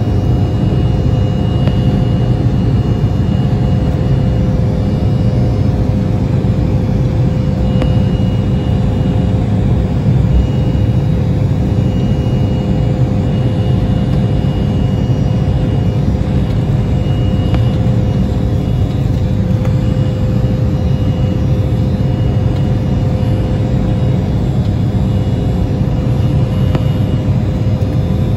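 Cabin noise of an Embraer E175 climbing after takeoff: its wing-mounted GE CF34-8E turbofans running at climb power under a steady rumble and rush of air. A steady hum runs through it, with a faint high whine that comes and goes.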